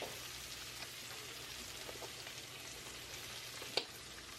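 Onions, garlic, sun-dried tomatoes and sliced red bell pepper sizzling steadily in olive oil in a frying pan over medium-high heat, with small crackles and one sharp click about four seconds in.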